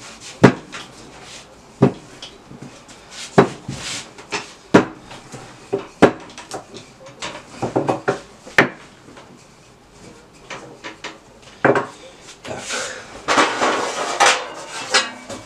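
Wooden rolling pin knocking and rolling on a wooden table as thin pizza dough is rolled out, with sharp knocks every second or two. Near the end comes a longer spell of rattling and rustling.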